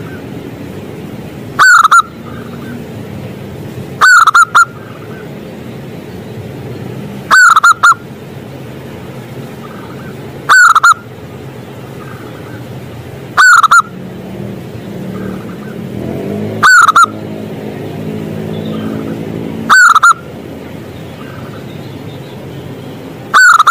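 Zebra dove (perkutut) singing: a short, loud cooing phrase repeated eight times, about every three seconds.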